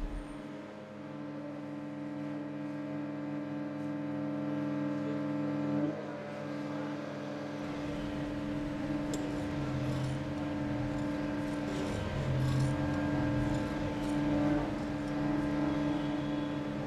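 A steady droning hum of several held pitches, shifting slightly about six and again about eight seconds in.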